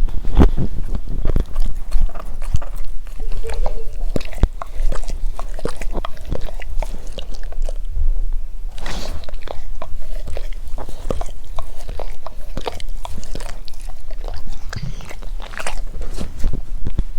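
A dog breathing close to the microphone, with a steady run of small clicks and crackles from its mouth and nose, and a noisy breath about nine seconds in.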